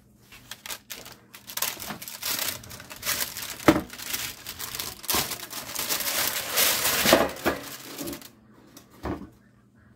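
Parchment paper crinkling and rustling as a sheet of baked cookies is slid off a metal baking sheet onto a wire cooling rack, with a few sharp knocks from the pan being handled. The rustling stops about eight seconds in, followed by one more knock.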